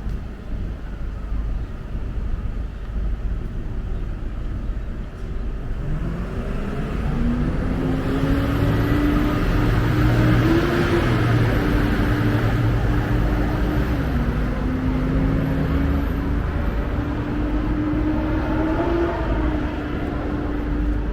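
Road traffic with a steady low rumble. About six seconds in, a vehicle's engine note rises and then holds with small steps, and tyre noise grows loudest around the middle.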